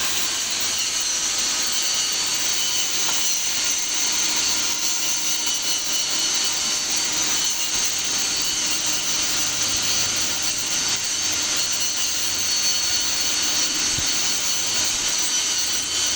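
Electric arc welding: the welding arc hissing steadily without a break.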